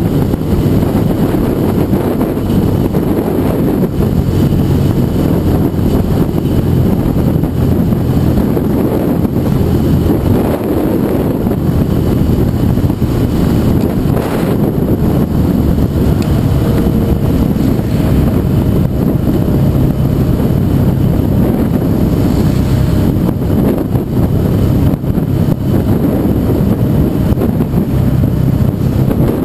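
Steady wind rumble buffeting the microphone of a motorcycle riding at road speed, over the steady drone of a Yamaha TDM 850's parallel-twin engine.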